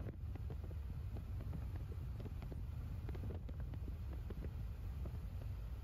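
Wind buffeting the microphone: a steady low rumble with scattered faint crackles and clicks.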